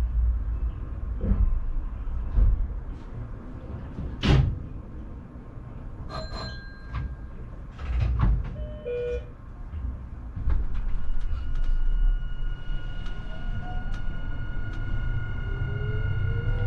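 Doors sliding shut on an electric train with several thumps and a few short tones, then the Nankai 12000 series train's motors start: a steady high whine joined by a hum that rises in pitch as it pulls away near the end.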